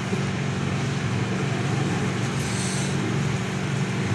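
Steady background hum and hiss, with a sharp clank near the end as the plate used as a lid is lifted off the frying pan of potatoes.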